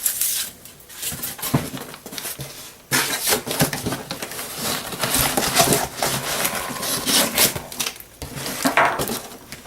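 Cardboard shipping box and its packing being handled and opened by hand: irregular rustling and scraping of cardboard, quieter for a couple of seconds near the start.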